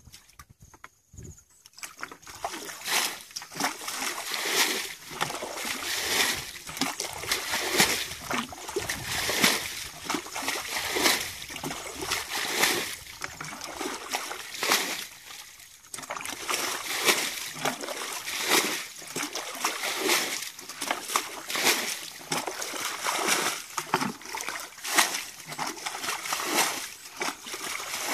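A plastic bucket bailing water from a shallow muddy ditch: repeated scoops and splashing throws of water, one about every second and a half to two seconds, with a short pause about halfway through.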